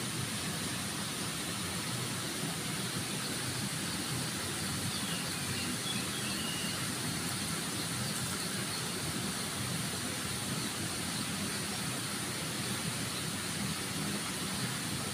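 Steady rushing background noise with a low rumble and no distinct events, and a few faint high chirps about five to six seconds in.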